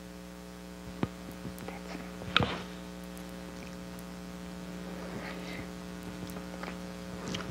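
Steady electrical mains hum, with a faint click about a second in and a sharper knock about two and a half seconds in.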